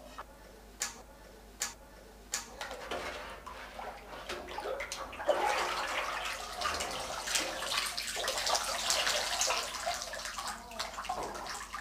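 Liquid tin glaze sloshing and splashing in a galvanised metal tub as a biscuit-fired earthenware plate is dipped and swirled in it, then glaze running off the lifted plate back into the tub. A few light clicks come in the first seconds, before the sloshing builds about three seconds in; it is loudest in the middle and eases near the end.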